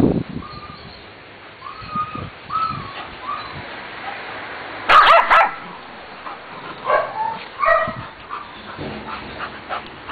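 A bull terrier and a shih tzu play-fighting: a run of short high whines, then a loud burst of barks about five seconds in, followed by a few more yips.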